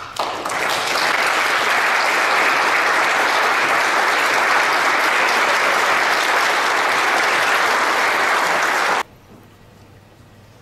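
Audience applauding with dense, steady clapping that starts right away and cuts off abruptly about nine seconds in, leaving a much quieter hall.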